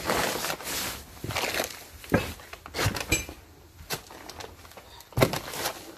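Handling noise among clutter: a rustle, then a series of separate knocks and clicks as objects are moved and set down.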